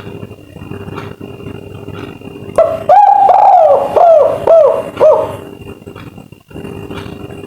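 Spotted dove (tekukur) of the 'kuk 3' song type, an albino bird, giving one cooing phrase a little under halfway in: a long first note followed by several shorter notes that each fall in pitch. Steady background noise before the coo.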